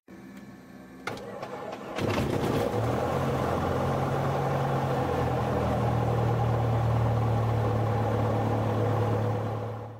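An engine starts up about two seconds in, after a click near one second, and then runs steadily with a low, even hum, fading out at the end.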